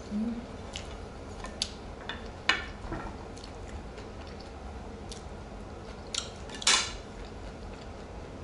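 Chopsticks and a spoon clinking and tapping against ceramic bowls during a meal: a handful of separate short clinks, the loudest about two and a half seconds in and again near seven seconds.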